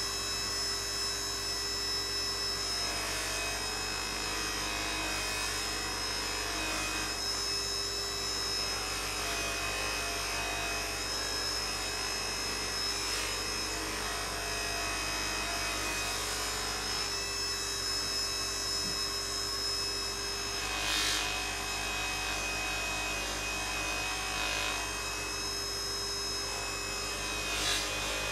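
Bench polishing motor running steadily, its buffing wheel spinning against a watch case held to it. The metal rubs on the wheel in a steady hiss, with two brief louder rubs near the end.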